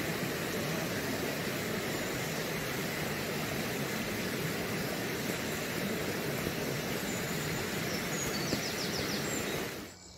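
Steady rushing of a stream running beside the trail: an even hiss from low to high. A few faint high ticks come near the end, then it cuts off abruptly.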